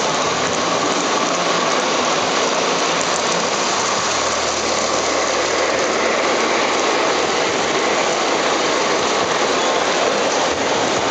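Model trains rolling along the layout's metal track close by: a steady, even rumble of wheels on rails.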